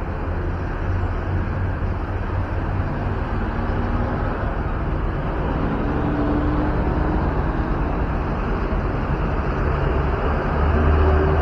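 Road traffic: a steady rumble of vehicle engines and tyres, growing a little louder near the end.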